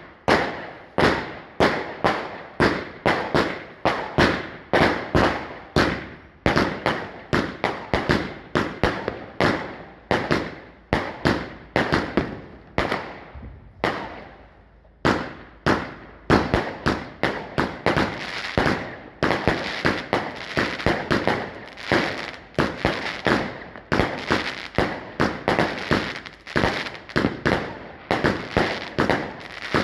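Rubro Sledgehammer firework firing a long series of sharp bangs, about two a second, each with a short echoing tail, thinning briefly about halfway through.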